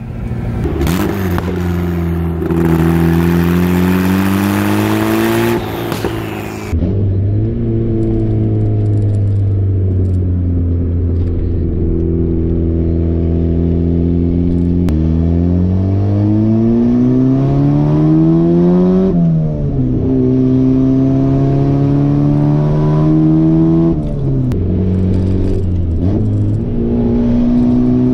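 Turbocharged Mazda Miata four-cylinder engine heard from inside the cabin, pulling hard through the gears: the pitch climbs with the revs, then drops sharply at each upshift, several times over.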